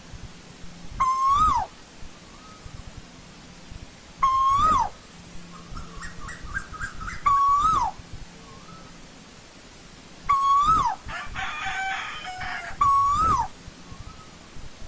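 Asian koel calling: five loud whistled notes, each swelling slightly upward and then dropping away, repeated about every three seconds. Softer quick runs of notes fill two of the gaps.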